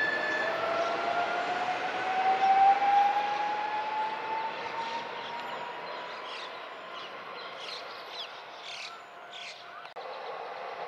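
Keio 1000 series electric train accelerating away, the whine of its inverter motor drive rising steadily in pitch and then fading. A few short high chirps come in its later part.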